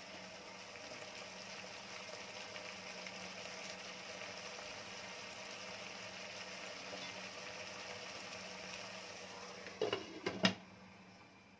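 Thick tomato and spice masala sizzling and bubbling in oil in a kadhai as it is fried down, a steady spattering hiss. Near the end come two sharp clinks as a glass lid is handled on the pan.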